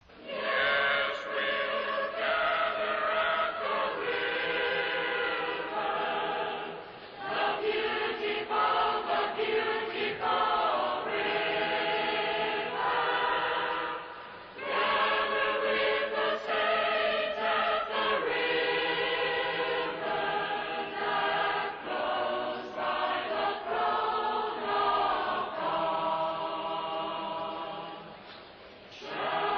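A choir of many voices singing together in long, slow, held phrases, with short breaks between the phrases.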